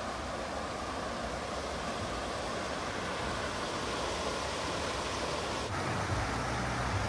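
Steady rush of a shallow stream flowing over a stony bed. Near the end a low rumble joins it.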